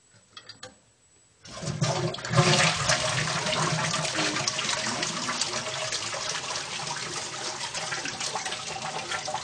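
A few faint clicks, then about a second and a half in a toilet flushes: water rushes in suddenly and keeps swirling steadily down the bowl.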